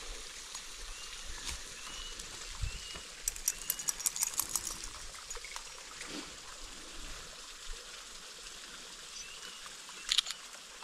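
Water from a small waterfall running steadily. A bird chirps a few times early on, and a quick run of sharp clicks and crackles around the middle is the loudest thing, with two more clicks near the end.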